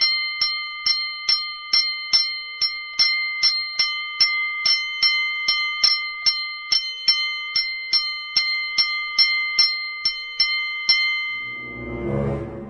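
A bell struck rapidly and repeatedly, its clear metallic ring sustained underneath, stopping about eleven seconds in. A low swelling sound rises just before the end.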